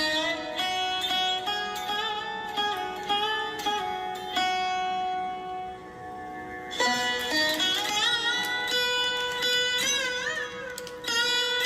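Background instrumental music: a plucked string melody with held notes that bend and waver in pitch.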